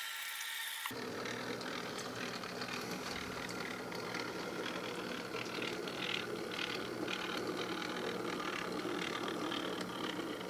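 N-scale model Shay locomotive running slowly along the track, pulling a pulpwood car. Its small electric motor whirs steadily, with a light clicking rattle from the wheels and gearing on the rails.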